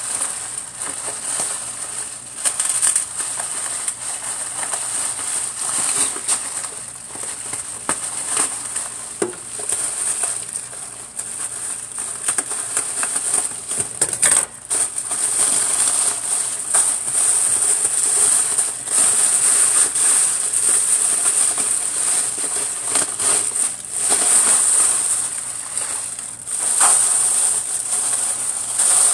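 Clear plastic packaging bag of empty lip gloss tubes crinkling and crackling as it is handled and turned, with small clicks from the tubes inside. It grows louder about halfway through.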